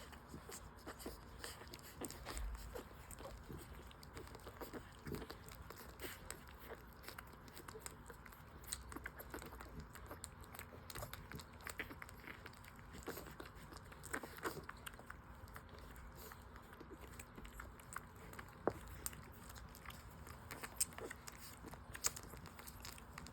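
Five-day-old French Bulldog puppies suckling: faint, irregular clicking and smacking sounds.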